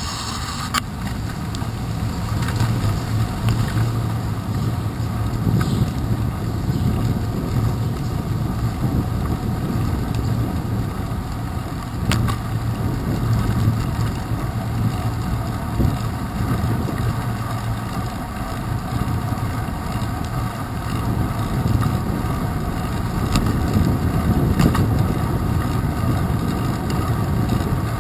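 Steady rumble of a bicycle riding on wet pavement, heard through a handlebar-mounted camera: tyre noise and handlebar vibration with wind on the microphone, and a few sharp clicks or knocks, the clearest about twelve seconds in.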